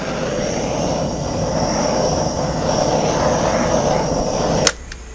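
Small handheld torch flame burning with a steady rushing hiss, played over wet poured acrylic paint to pop bubbles and bring up cells. It cuts off with a click near the end.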